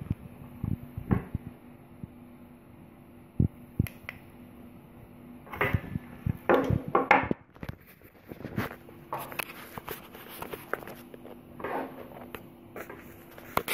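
Handling noise as wireless microphone gear is picked up and moved: scattered clicks, knocks and rustles, thickest about six to seven seconds in, over a faint steady low hum.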